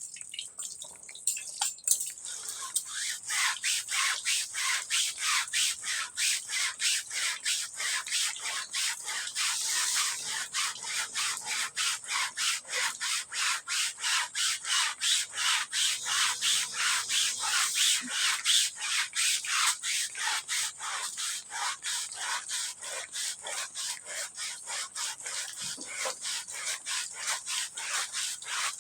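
A stiff brush scrubbing a dirty, muddy carpet in quick, even back-and-forth strokes, about three a second.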